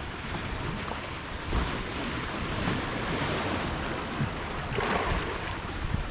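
Ocean surf washing in, with wind on the microphone. The wash swells about one and a half seconds in and again near five seconds.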